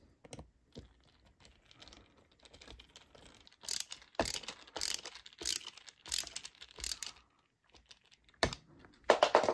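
Phillips screwdriver driving a screw back into a chair armrest, making a run of about seven sharp clicks roughly every half second, with a few more near the end.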